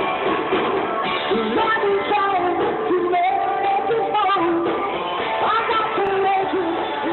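Live rock band playing, with a wavering melodic lead line over the band. The sound is thin and dull, as recorded on a phone.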